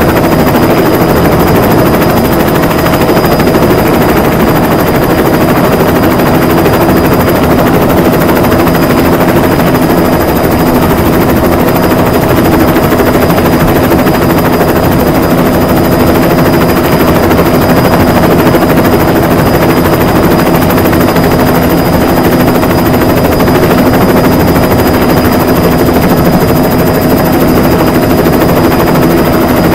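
Bus diesel engine running loud and steady, its note unchanged throughout with no revving or gear changes.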